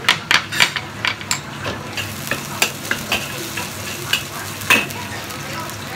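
Minced garlic sizzling in oil in a wok while a metal spatula stirs and scrapes it, with quick clicks of the spatula against the wok. The clicks come thick and fast for the first two seconds, then thin out over the steady sizzle, with one louder clack shortly before the end.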